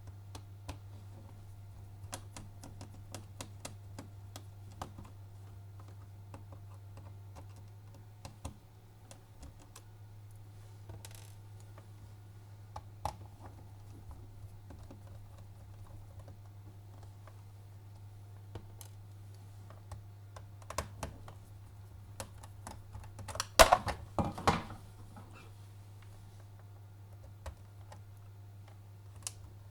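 Small scattered clicks and taps of a screwdriver working small screws out of a plastic laptop underside, over a steady low hum. A louder short burst of clattering comes about three-quarters of the way through.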